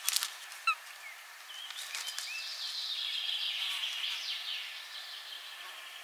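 Eurasian sparrowhawk landing at its nest: a brief flutter of wings and twigs at the start, then thin, high, wavering bird calls that swell for a few seconds and fade.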